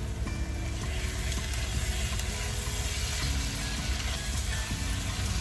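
Food sizzling as it fries in a pan, a steady hiss over a low steady hum, with soft background music whose held notes change every second or so.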